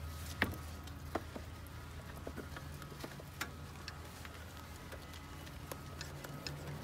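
Scattered light clicks and taps of small parts and tools being handled during work on a car, over a steady low hum.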